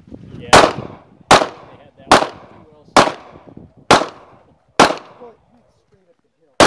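Six pistol shots from a ZEV ISI Speedgun at an even pace, about one every 0.8 seconds. After a pause of nearly two seconds, one more shot comes at the very end.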